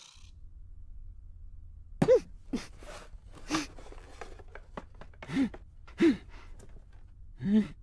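A cat meowing over and over: about six short meows, each rising then falling in pitch, starting about two seconds in, over a steady low hum.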